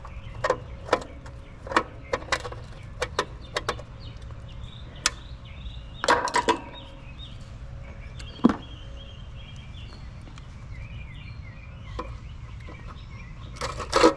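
Scattered sharp clicks and knocks from hand tools and parts being handled at an air-conditioner condenser unit, the loudest near the end, with birds chirping faintly in the background.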